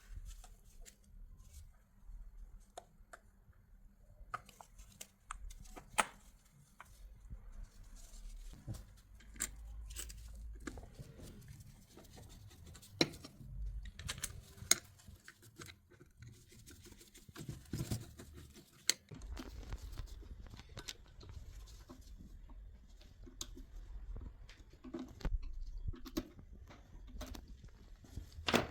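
Irregular clicks, taps and rustling of parts and tools being handled, with a few sharper knocks, over a low steady rumble.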